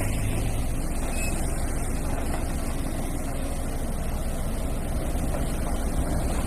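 Single-drum Sakai road roller's diesel engine running steadily as the roller travels over a dirt road bed, a low even rumble.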